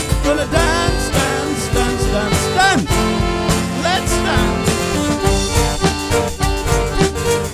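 Live English folk band playing an instrumental passage with accordion, fiddle and a drum kit keeping a steady beat, with a few sliding notes a few seconds in.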